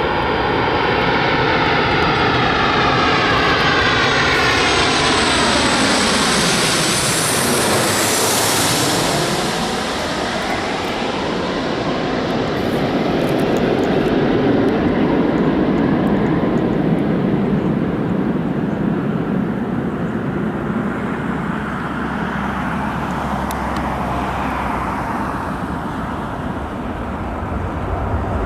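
Jet airliner passing close overhead, its engine noise sweeping down and back up in a whooshing pass about eight seconds in, then a steady rumble that eases as it moves away.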